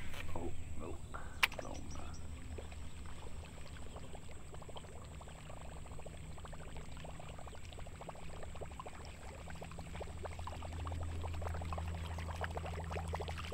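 Water trickling and lapping, a dense patter of small splashes and crackles over a steady low rumble. It grows a little louder and busier over the second half.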